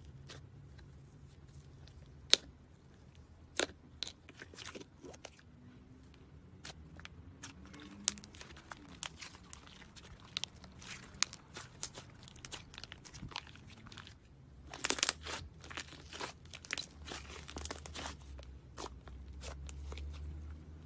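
Slime being pressed and stretched, giving scattered sharp crackles and pops, with a dense burst of crunching about fifteen seconds in.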